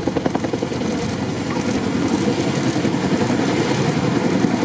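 CH-47J tandem-rotor transport helicopter running, its rotors giving a loud, steady, rapid beat.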